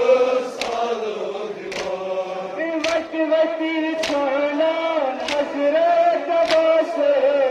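Men chanting a mournful nouha together in long held lines, with sharp chest-beating (matam) strikes, hands on chests, keeping an even beat a little slower than once a second.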